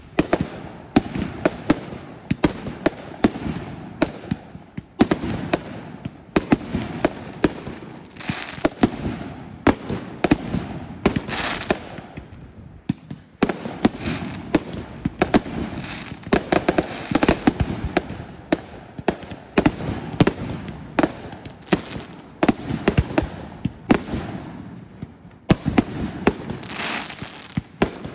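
Fireworks display: a fast, unbroken run of sharp bangs from shells bursting, several a second, with crackling and hiss between them.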